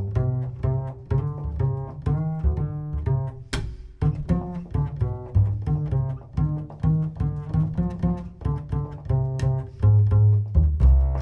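Jazz double bass played pizzicato, a run of plucked notes out front, with piano chords behind it.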